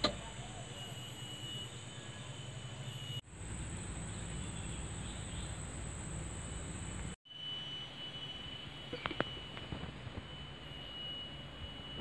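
Caterpillar 160M motor grader's diesel engine running steadily, a low hum with a thin, steady high-pitched tone over it. A few light clicks come about nine seconds in.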